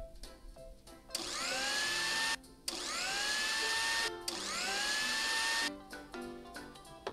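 Small electric blender motor run in three short bursts of about a second and a half each, each spinning up with a rising whine, then cutting off, as it blends strawberries and milk. Light background music plays underneath.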